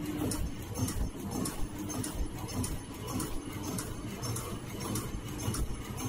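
High-speed servo-driven flat three-ply face mask machine running in production, rated at about 100 masks a minute: a steady mechanical clatter with a repeating stroke about one and a half to two times a second and an on-off hum, one cycle per mask.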